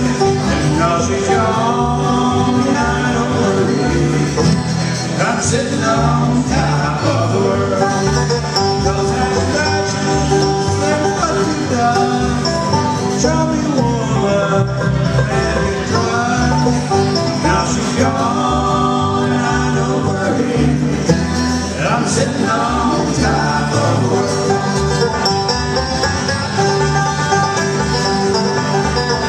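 Bluegrass band playing live: banjo, two acoustic guitars and upright bass.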